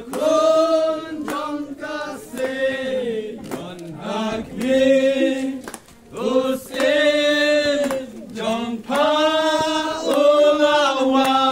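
A group of voices singing together in phrases of long held notes, with short breaks between phrases.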